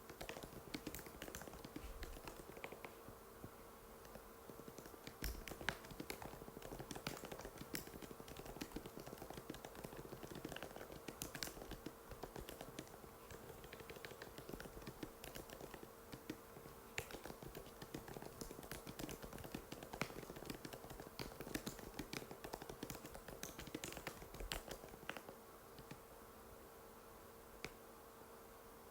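Typing on an Apple MacBook butterfly keyboard: many quick, light key clicks at an uneven pace, over a faint steady hum.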